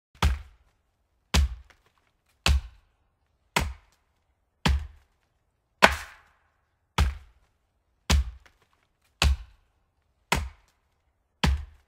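A series of eleven sharp impact hits, about one every second and evenly spaced. Each has a deep thud and a short fading ring, typical of an edited intro's impact sound effect.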